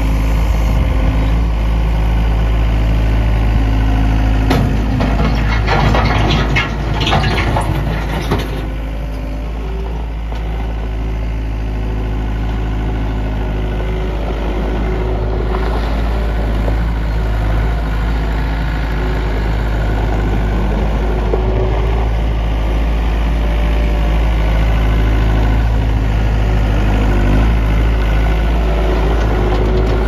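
Case 1845C skid steer's four-cylinder diesel engine running steadily as the loader drives and works on gravel. About five seconds in there are a few seconds of harsher, rattling noise over the engine.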